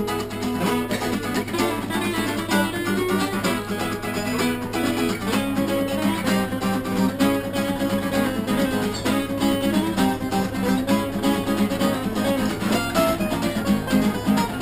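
Two acoustic guitars played together, strummed and picked in a steady rhythm.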